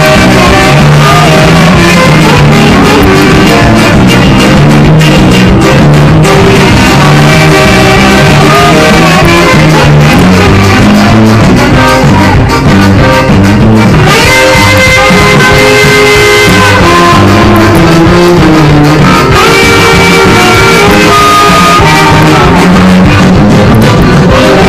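Live Roma band music, very loud: two saxophones playing a melody together over electric guitar, keyboards and drums.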